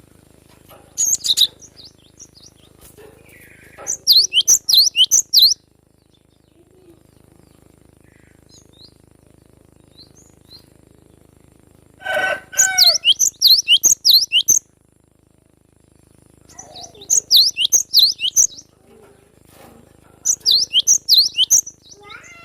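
Cinereous tit (glatik batu) singing in five short bursts of rapid, repeated high chirps, each burst lasting one to two seconds with pauses between. The burst about twelve seconds in starts with some lower notes.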